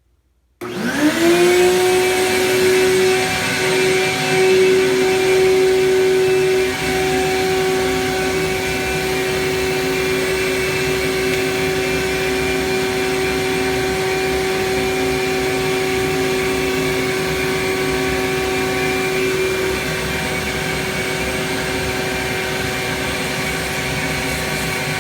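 Ridgid 4.25-horsepower shop vac switching on about half a second in, its motor whine rising quickly and then running steadily. It is drawing suction through a vehicle's exhaust system by a hose taped to the tailpipe, to find an exhaust leak.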